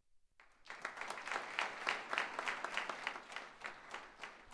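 Audience applause: a crowd clapping, starting about half a second in and thinning out toward the end.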